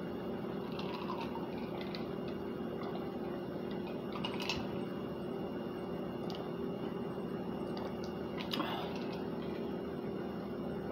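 Steady low room hum with a few faint clicks.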